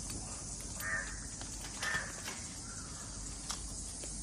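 A bird calling twice, about a second apart, over a steady high-pitched hiss.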